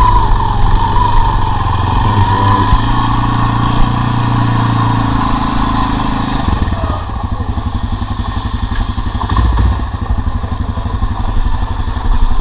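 1988 Honda FourTrax 300 ATV's single-cylinder four-stroke engine running on its freshly rebuilt carburettor, held steady at a raised speed, then dropping to a lower, pulsing idle about six and a half seconds in.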